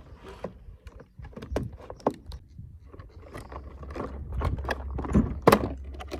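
A parts box and its packaging being opened and handled by hand: irregular rustling and small clicks and knocks, with a sharp knock about five and a half seconds in.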